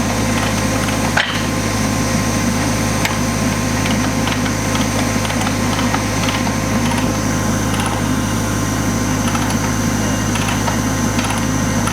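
Engine of track-work machinery running steadily with a constant hum, and faint scattered ticks and one sharp knock about a second in.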